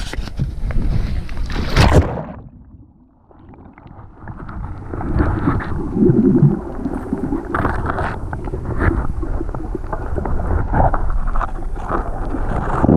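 Wind and handling noise on an action camera on a boat deck, then a sudden drop about two to three seconds in as the camera goes underwater. After that comes a muffled underwater rumble with scattered clicks and knocks as the camera moves through seagrass.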